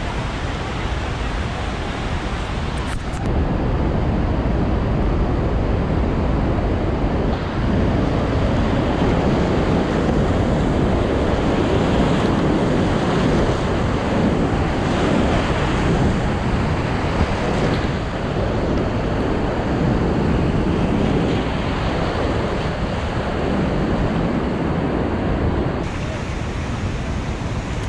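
Whitewater rapids rushing around a kayak as it runs through them, a dense steady roar with water and wind buffeting the microphone. It steps up sharply about three seconds in and eases a little near the end.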